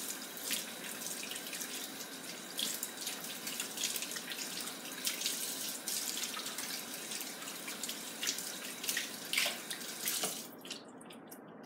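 Kitchen tap running into a stainless steel sink while a raw chicken leg quarter is rinsed under it, with irregular splashes as the water hits the meat. The water is shut off shortly before the end.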